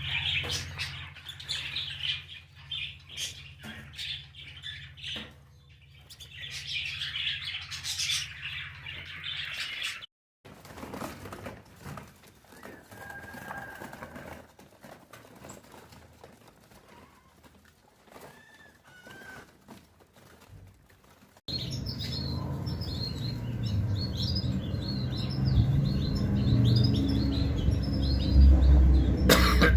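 Many small cage birds chirping in a dense, repeated chatter over a low steady rumble. It is quieter in the middle with only a few whistles, then louder and busier over the last third.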